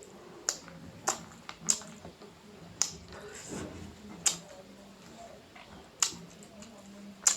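Close-miked eating sounds: a person chewing, with sharp wet mouth smacks and clicks about once a second.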